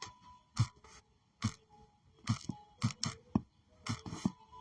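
Typing: sharp, unevenly spaced clicks and taps, about two a second, close to the microphone.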